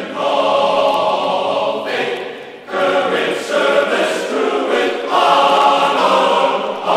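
Music: a choir singing held chords, with a short pause between phrases about two and a half seconds in.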